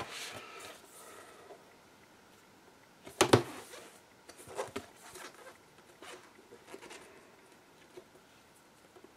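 Handling of a cardboard game board: one sharp rustling knock about three seconds in, then a few softer short rustles over faint room tone.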